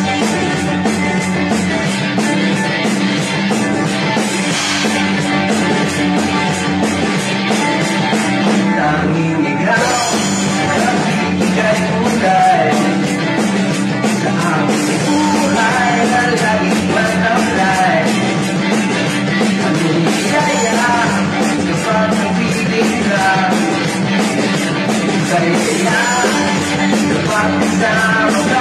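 Rock song with a drum kit beating steadily throughout; a singer comes in about ten seconds in, after an instrumental opening.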